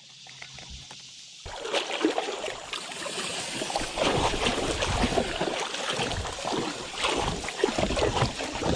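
Small fishing boat and its trolling motor grinding and scraping over a shallow rocky riverbed, a dense crackling, clattering noise that starts about a second and a half in. The water is too low, and the motor is taking a beating on the bottom.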